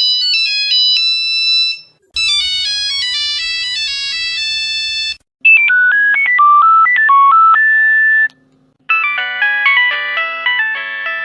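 Nokia mobile phone ringtones: short melodic excerpts of about three seconds each, played one after another with brief silent breaks. Each is in a different electronic sound, some a single line of beeping notes, others fuller with several notes at once.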